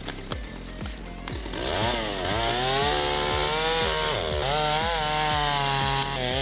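Chainsaw engine revving, its pitch climbing and falling twice, over background music with a steady beat.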